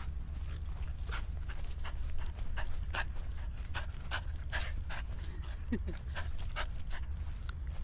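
Border Collie puppy panting in quick, short breaths, over a steady low rumble.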